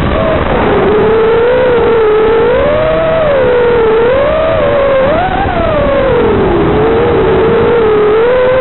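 FPV racing quadcopter's brushless motors and propellers whining in flight, the pitch rising and falling continuously with the throttle.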